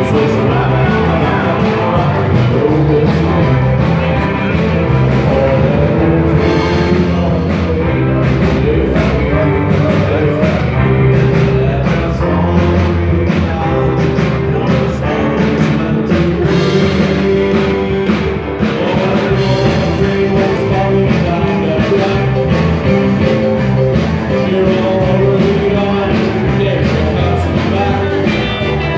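Live rock 'n' roll band playing a song with a singer.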